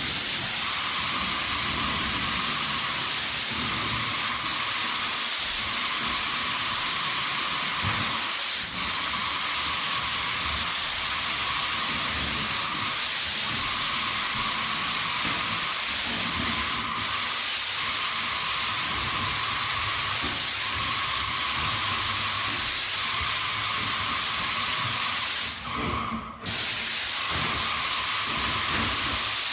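Airless paint sprayer hissing steadily as it sprays a mist coat. The hiss is broken by brief drops about every four seconds and a longer one near the end.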